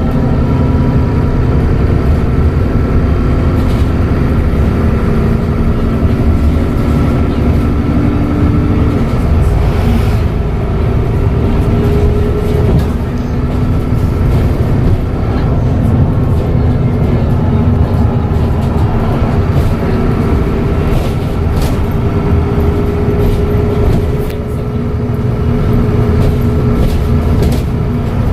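Dennis Trident double-decker bus's diesel engine running under way, its engine tones dropping and rising again as the bus eases off and pulls away, with a thin steady turbo whistle over the rumble.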